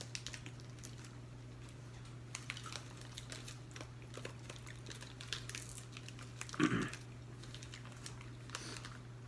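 Small clicks and crinkles of plastic food packets being handled, with some chewing, over a steady low hum. One brief louder sound comes about two-thirds of the way through.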